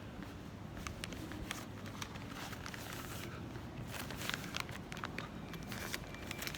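Footsteps and scattered clicks and knocks in a busy terminal hall over a steady low hum, with a faint steady high tone coming in about two-thirds of the way through.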